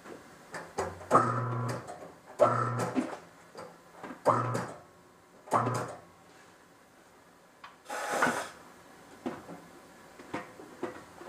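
Tire-mounting work: four short mechanical clunks, each with a brief low hum and ringing, about a second and a half apart, then a short burst of hiss about eight seconds in and a few light clicks.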